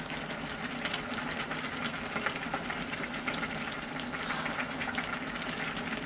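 Kimchi-jjim (braised kimchi stew) simmering in an uncovered stainless steel pot: a steady bubbling with many small pops.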